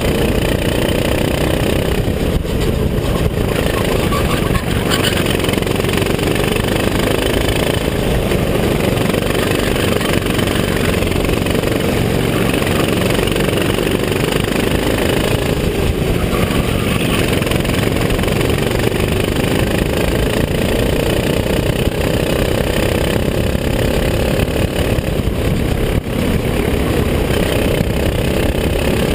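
A racing go-kart's engine running at speed, heard on board the kart, its pitch slowly rising and falling as it accelerates and backs off through the corners, over a constant rush of noise.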